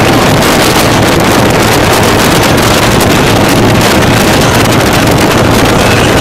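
Heavy wind buffeting the microphone over the steady drone of motorcycle engines cruising at highway speed.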